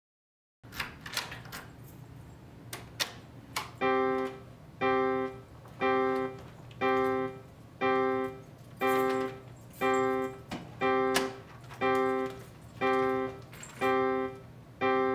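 A few clicks and knocks, then a synthesized electric-piano-like chord sounding in short pulses about once a second: the entry alarm tone of a prototype musical security-alarm control, repeating until the user gives their input.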